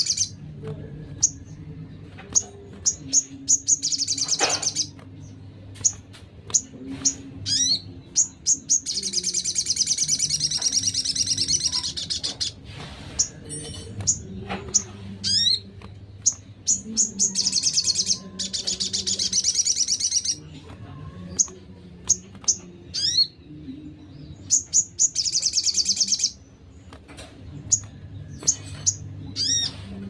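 Small songbirds singing in a bird-tutor (masteran) recording: rapid high chirps and sharp falling notes, broken by several long, fast, high trills lasting one to three seconds each, over a faint low hum.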